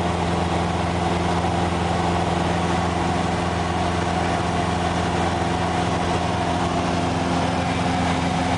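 Light aircraft's engine and propeller droning steadily, heard from inside the cockpit cabin, holding one constant pitch as in level cruise.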